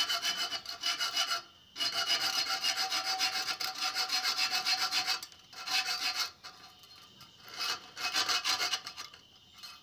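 A hand-held hacksaw blade sawing through the thin steel tail pipe of a motorcycle exhaust, a rapid back-and-forth rasping scrape. It stops briefly about a second and a half in, and the strokes come quieter and more broken in the last few seconds. The blade is dull, so the cut goes slowly.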